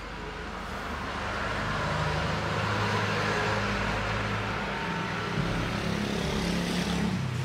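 Steady engine-like rumble of a motor vehicle running, swelling over the first two seconds and then holding steady.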